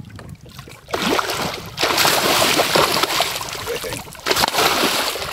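A hooked catfish thrashing at the surface beside the boat, splashing water hard in three loud bursts: one about a second in, a longer one from about two seconds to four, and a shorter one near the end.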